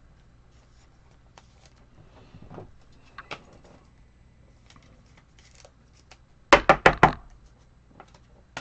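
Trading cards being handled at a tabletop: faint clicks and rustling, then about six and a half seconds in a quick run of sharp knocks, with one more click near the end.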